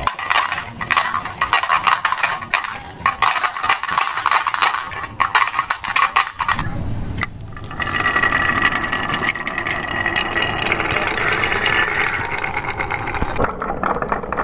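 Many marbles clattering and clicking through a carved wooden track in quick, irregular knocks. About halfway through it gives way to a steady rolling rumble as marbles run along a wavy wooden rail.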